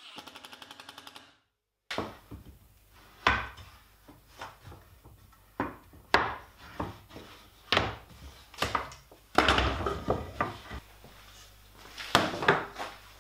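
A cordless drill-driver briefly drives a screw through a steel hinge into plywood, running with rapid, even pulses. Then plywood pieces are handled, set down and stacked on a workbench, giving a string of sharp wooden knocks and clacks, about a dozen of them.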